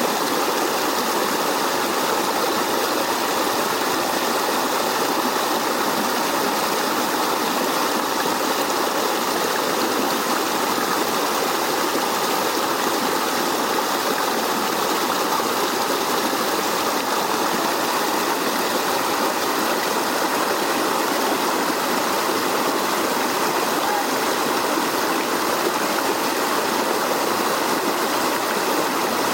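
Creek water flowing, a steady, unbroken rush of running water.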